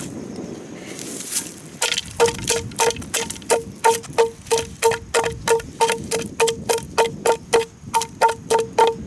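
A fast series of hollow knocks, about three a second, each ringing at the same pitch, starting about two seconds in: green bamboo being struck or chopped.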